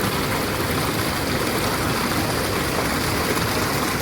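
Steady rushing of flowing water, a stream running.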